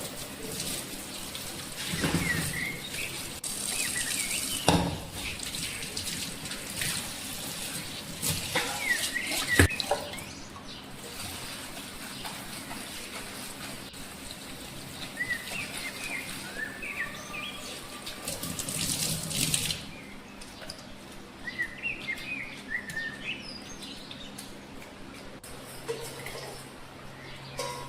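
Water running from a tap in several short spells, with small birds chirping in the background and a couple of sharp knocks.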